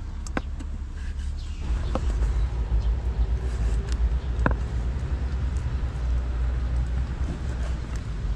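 Kitchen knife slicing raw pork on a wooden cutting board, with a few sharp taps of the blade on the board. Under it a low rumble grows louder about two seconds in and holds.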